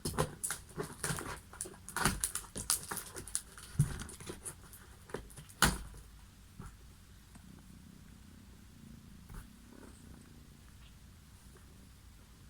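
Cardboard helmet box being opened by hand: a quick run of scrapes, rustles and clicks of flaps and packaging, with one sharp knock just before the six-second mark, then only faint handling.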